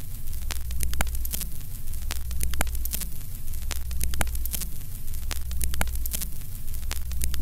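Old-film countdown leader sound effect: a steady low hum under film crackle, with sharp clicks scattered throughout.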